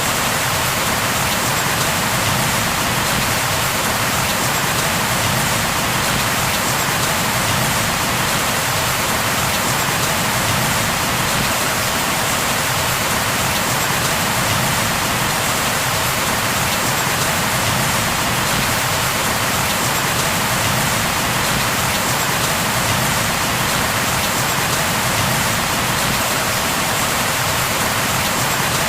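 Steady rain falling, an even unbroken hiss of drops with no thunder or changes.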